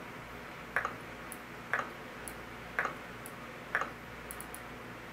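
Selector knob of a Medtronic LIFEPAK 12 defibrillator/monitor being turned and pressed. It gives four sharp clicks about a second apart, with fainter ticks between them, as letters of a name are entered one at a time.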